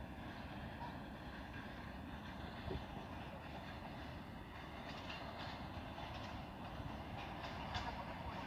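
VL80K electric locomotive with a freight train approaching: a steady rumble, with clicks of the wheels over rail joints that become more frequent from about halfway through.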